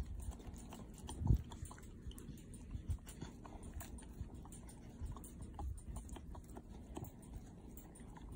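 Bulldog licking peanut butter off a finger: an irregular run of wet, sticky mouth smacks and tongue clicks, with one low thump about a second in.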